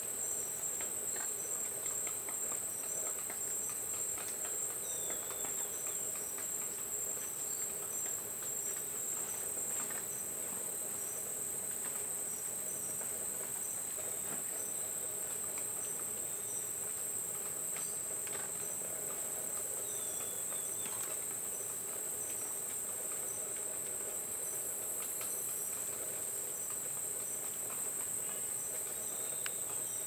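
Steady high-pitched insect chorus, a continuous even buzz from many insects, with a weaker steady lower hum beneath it. A couple of faint short chirps come through, about five seconds in and again past the middle.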